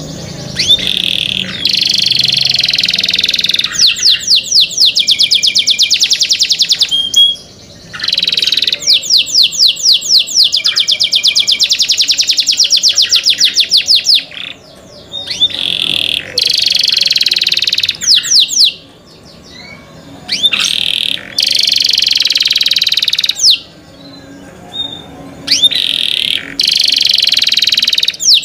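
Domestic canary singing long song phrases: fast runs of repeated sharp chirps alternate with sustained rolling trills, broken by several short pauses.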